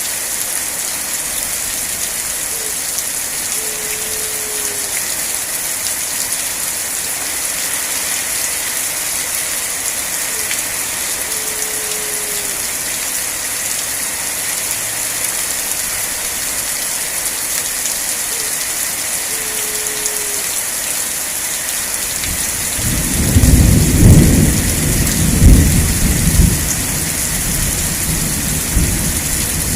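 Steady heavy rain, with a low rumble of thunder rolling in about three-quarters of the way through, the loudest part. A faint short falling note sounds three times, about eight seconds apart, before the thunder.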